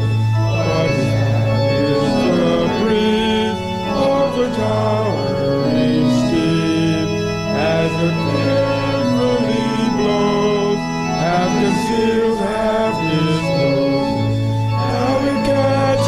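Organ playing a slow hymn in sustained chords that change every second or two.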